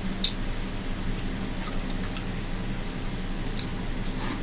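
Hand-eating sounds: fingers mixing rice and curry on a plate, with a few soft clicks, then a sharper wet mouth sound near the end as a mouthful goes in. A steady low hum runs underneath.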